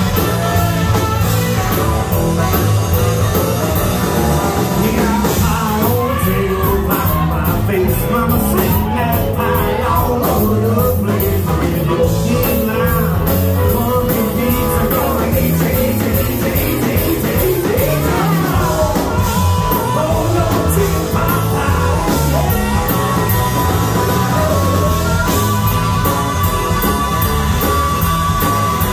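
Live rock band playing: singing over electric guitar, bass, saxophone and drums, heard from among the audience.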